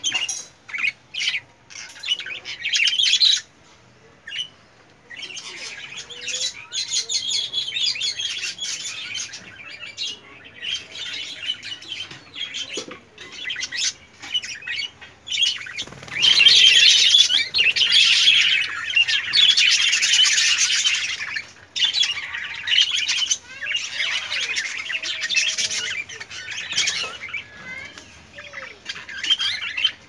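A flock of budgerigars chattering: a dense, continuous mix of high chirps and warbles, with a short lull early on. It swells loudest a little past the middle.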